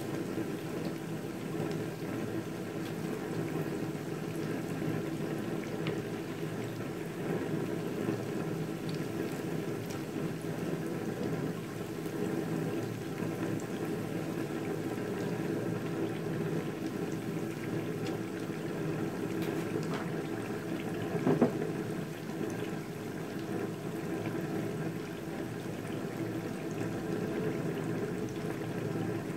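Spring-roll-wrapped fermented cassava pieces deep-frying in a pan of hot oil, sizzling and bubbling steadily, with one short sharp sound about two-thirds of the way through.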